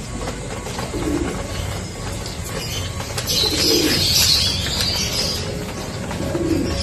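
Domestic racing pigeons cooing, a short low coo about every two and a half seconds.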